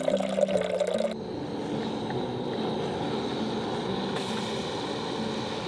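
Water pouring into a stainless steel gooseneck kettle for about a second, then the steady rushing hiss of a portable gas-canister camping stove burning under the kettle.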